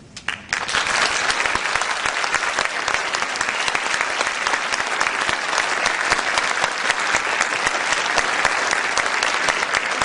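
Theatre audience applauding, starting a moment in and holding steady.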